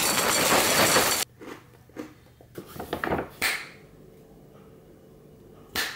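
Dry Cheerios poured into a ceramic bowl, a dense rattling patter lasting about a second that stops abruptly. It is followed by a few quieter knocks and rustles of kitchen handling.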